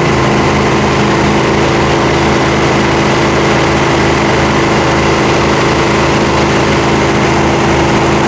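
Trailer-mounted pressure washer's engine and pump running steadily at full speed, at about 3350 rpm, with an even drone and a faint high whine.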